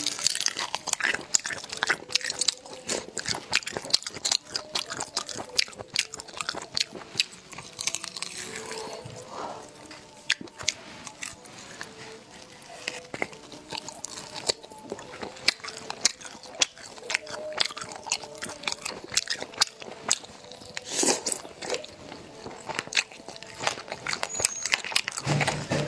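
Close-miked eating sounds of spicy snails in their shells: wet biting and chewing with many quick sharp clicks throughout.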